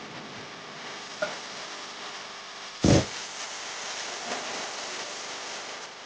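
A single loud, short knock about three seconds in, with a fainter click a couple of seconds before and a softer knock after it, over a steady background hiss.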